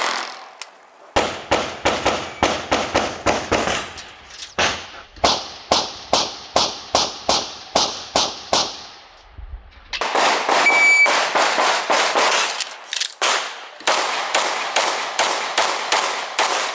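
Semi-automatic pistol fired in rapid strings, several shots a second, with a short break about nine seconds in. A brief electronic beep sounds just before the second string of shots.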